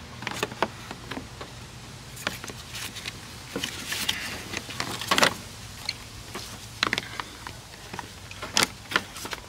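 Gloss-black plastic fog light trim bezel being pressed and worked into a 2022 Corolla hatchback's front bumper by hand: irregular plastic clicks, taps and rubbing, the loudest click about five seconds in, over a steady low hum.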